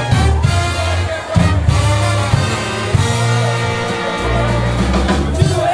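A brass band playing live, with horns over a low, stepping bass line and drums.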